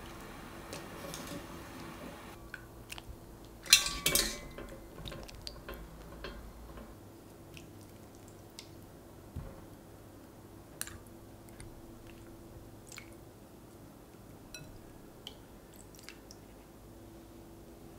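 Kitchen handling sounds of blanched cherry tomatoes being moved and peeled in a glass bowl of water: a sharp clink and splash about four seconds in, then soft wet squishes, small splashes and light taps on glass.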